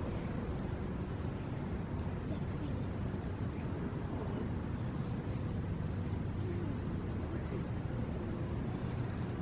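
Outdoor background noise: a steady low rumble, with a short high chirp repeating about twice a second and a faint click about halfway through.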